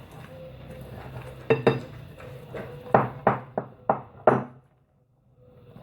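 A mixing utensil clinking against a bowl while cake batter is stirred, about six sharp knocks with a short ring, before the sound cuts off suddenly.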